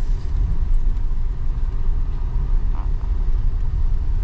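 Car in motion heard from inside the cabin: a steady low rumble of engine and tyre noise as it moves slowly over a dirt ground.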